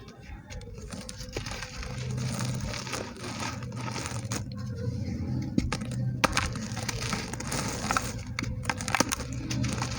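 Small pressed red dirt 'biscuits' being crumbled dry, a gritty crumbling with scattered sharp crackles, over a low steady hum.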